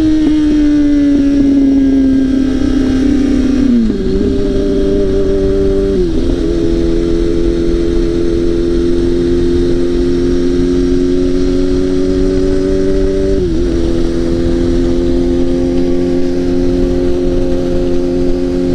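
Straight-piped Kawasaki ZX-6R inline-four running under way, its pitch climbing slowly in each gear and dropping suddenly at three upshifts, about four, six and thirteen seconds in.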